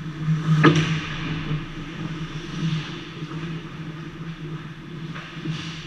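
Ice hockey play in an arena over a steady low hum: a sharp crack from the game about a second in, and a lighter knock near the end.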